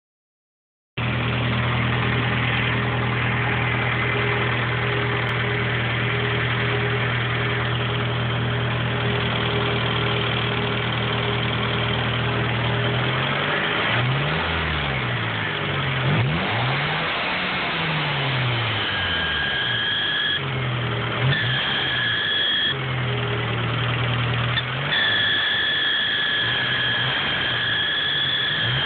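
Car engine idling steadily, then revved up and down several times from about halfway. In the last third a steady high-pitched squeal comes and goes, which the owner suspects is a pulley or drive belt.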